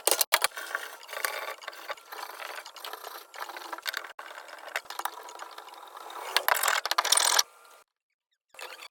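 Rapid mechanical clicking and rattling of hand tools at work on plumbing. A louder stretch comes about six and a half seconds in, then the sound cuts off abruptly for a moment near the end.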